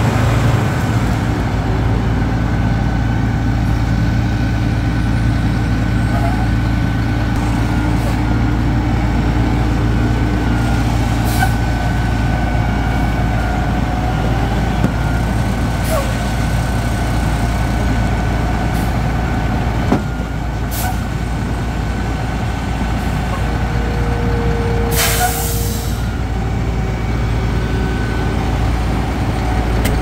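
Diesel engines of ready-mix concrete mixer trucks and a concrete pump truck running steadily, a deep rumble. About five seconds before the end comes a short, sharp hiss of released air.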